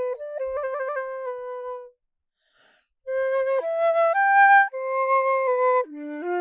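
Solo flute melody: a held note ornamented with quick trill-like note changes. After a pause of about a second the tune resumes in stepwise held notes.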